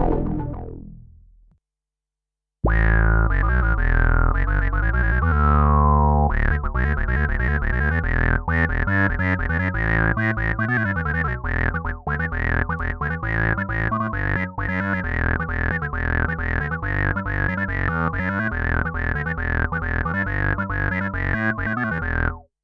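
Dave Smith Instruments Pro 2 synthesizer. One sound fades away in the first second and a half. After a short silence a new sound starts with a held deep note and a tone sliding down. From about six seconds in, a fast run of short sequenced notes plays until it stops suddenly near the end.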